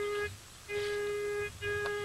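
Metal detector sounding a steady single-pitch tone that cuts out twice and comes back, signalling metal under its search coil.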